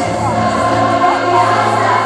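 A large choir singing a song, over a low held bass note.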